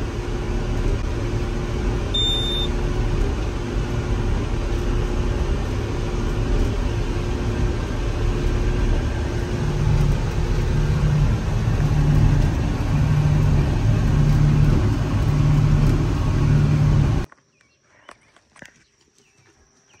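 Diesel engine of a farm machine running steadily, heard from inside its cab, with a short high beep about two seconds in and a low hum pulsing about once a second through the second half. The engine noise cuts off abruptly near the end.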